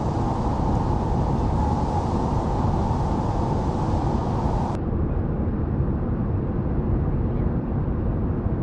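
Steady rushing of a fast-flowing river with whitewater, a constant low roar; the hiss in its upper part drops away suddenly about halfway through.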